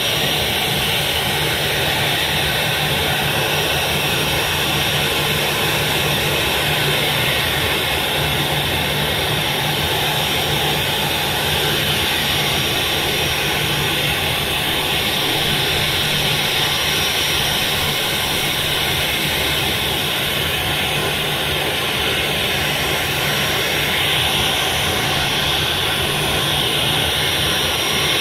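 Jet engines of a Boeing 737-800, CFM56-7B turbofans, running at taxi power as the airliner rolls along the runway: a steady, even rushing noise with no change in pitch.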